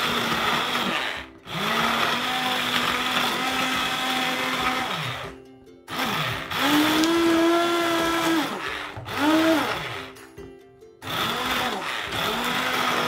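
Electric immersion (stick) blender puréeing cooked mixed red berries in a saucepan: a steady motor whine, switched off and back on three times for a moment. In the middle its pitch runs higher for a few seconds.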